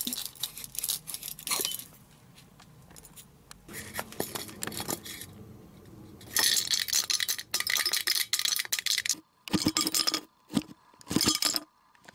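An empty metal aerosol can worked by hand, clinking and scraping as its valve cup is pried at. A long stretch of loud rough scraping comes past the middle, then several short separate scraping strokes near the end.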